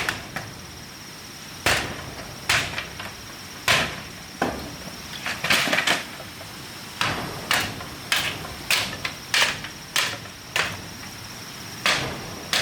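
Irregular series of sharp knocks from a hand tool striking, roughly one a second with some quick doubles, over a thin steady high tone.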